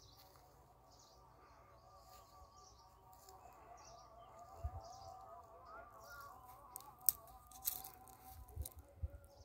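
Faint birdsong in open country: short high chirps repeating, over a softer wavering call. A few sharp clicks and low thumps come in the second half.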